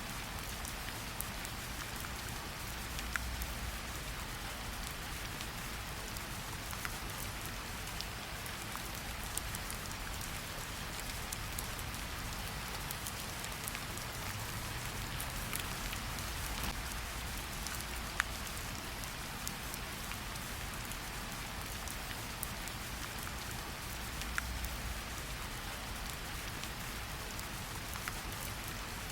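Steady rain falling outside, an even hiss with individual drops ticking here and there.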